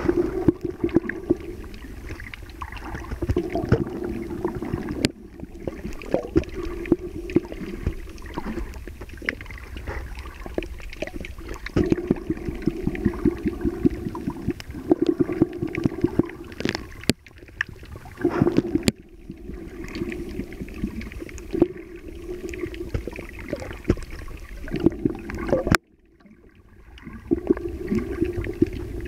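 Water sloshing and gurgling around a camera in shallow reef water, dense with small crackles and clicks. It breaks off abruptly several times, dropping out almost completely at about 26 seconds before picking up again.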